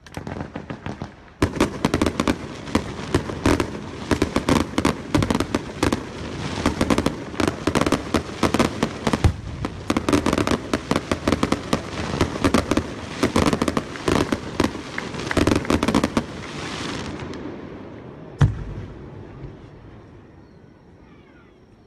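Aerial firework shells bursting in a rapid volley, with dense crackling and sharp bangs for about fifteen seconds, then fading out; one more single bang near the end.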